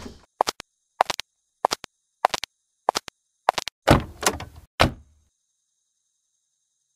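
A regular series of short clicks, about six of them a little over half a second apart, then a louder clatter with a dull low thud about four seconds in, after which the sound stops dead.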